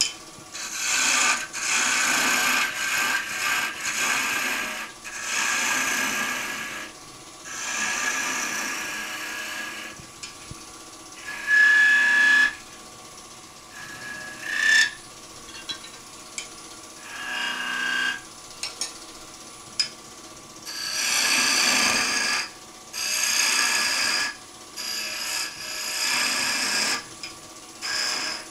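Turning tool cutting a small wooden finial spinning on a wood lathe: a dry rasping shave in repeated passes of a second or two with short pauses between. A couple of brief high squeals come near the middle.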